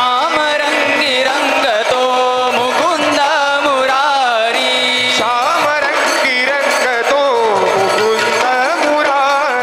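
A group of male voices singing a devotional aarti, with ornamented, gliding melody lines and voices joining in, accompanied by a hand-played barrel drum.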